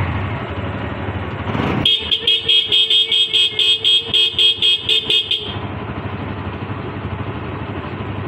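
A two-wheeler's horn beeping in rapid short blasts, about four a second for some three seconds starting about two seconds in, over a motorcycle engine idling steadily.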